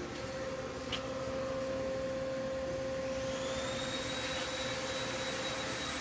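Steady electric machine hum with a constant mid-pitched tone, a light click about a second in, and a thin high whine that fades in about three seconds in and holds.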